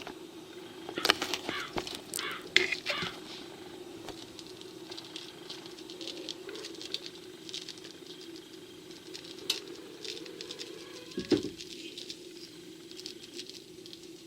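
Scattered clicks and light handling noise of honey being packed into a cored quince, over a steady low hum. The clicks come thick in the first few seconds, and there is a single sharper knock near the end.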